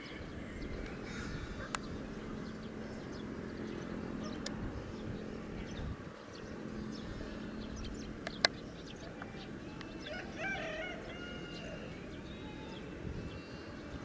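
Several birds chirping and calling in short, scattered notes over steady low background noise, with a longer wavering call about ten seconds in. A few sharp clicks stand out, the loudest about eight and a half seconds in.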